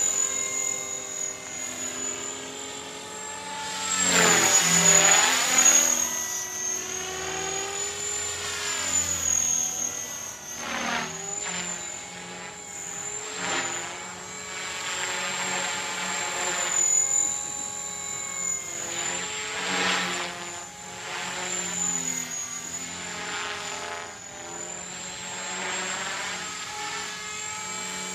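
Align T-Rex 500 radio-controlled helicopter in flight: a high-pitched whine from its rotor drive that wavers in pitch, with the rotor sound swelling and its pitch sweeping down and up as it passes close several times, loudest about four to six seconds in.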